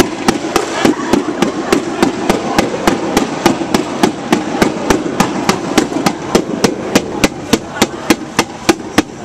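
Percussion struck in a steady fast beat, about three or four sharp hits a second, over the voices of a marching crowd.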